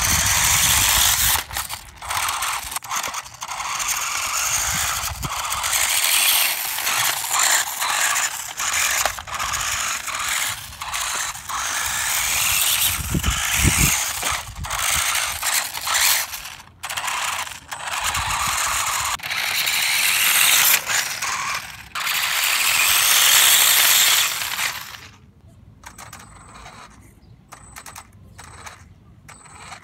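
Brushless-motor RC snowmobile converted to wheels, driving on concrete: its drivetrain and running gear make a rattling, gritty rush in bursts that start and stop with the throttle. The rush stops near the end, leaving only faint ticks.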